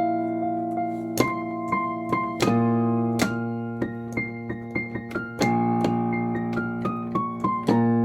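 Keyboard music: sustained chords under a melody of struck, piano-like notes. Near the end the notes step quickly downward.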